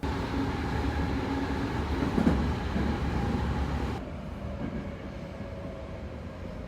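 Steady low mechanical rumble with a faint hum, stepping down to a quieter rumble about four seconds in.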